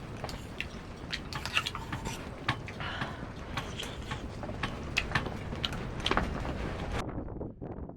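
Irregular clicks and clatter of objects being handled, over a steady background rush; the sound changes abruptly about seven seconds in.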